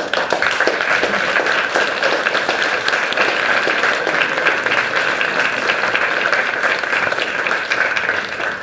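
Audience applauding steadily at the end of a lecture, many hands clapping at once, fading away near the end.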